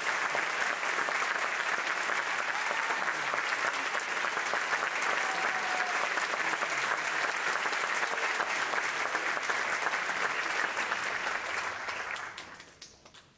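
Theatre audience applauding steadily, the clapping fading out near the end.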